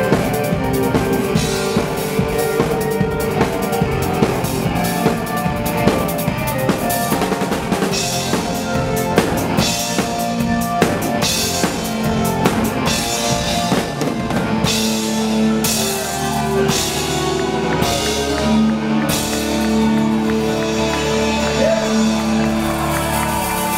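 Live rock band playing, with the drum kit loud and busy (kick drum, snare and cymbals) over bass and keyboards. About fifteen seconds in, the drumming thins to a regular cymbal beat and long held low notes come to the fore.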